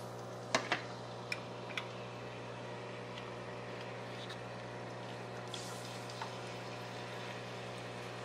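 Thin fish strips sizzling softly in hot vegetable oil in a skillet, with a few light clicks in the first two seconds as strips are laid in the pan. A steady low hum sits under it.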